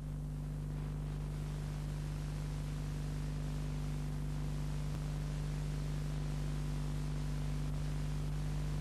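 Steady hiss with a low electrical hum from the blank leader of an analogue videotape, switching on abruptly at the start and holding constant.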